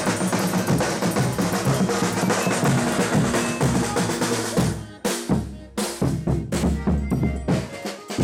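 Folia de Reis band playing a chula on drums and other instruments. About five seconds in, the full playing thins to separate drum beats, which die away near the end.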